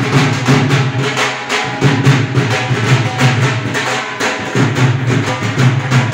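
Loud music with a steady drum beat over a heavy, sustained bass line.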